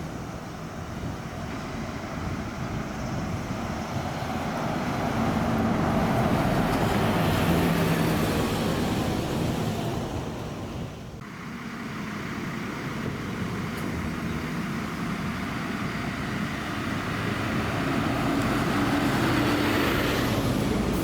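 Large buses driving past, their engine and tyre noise swelling and fading as each one goes by, twice, with an abrupt break between the two passes.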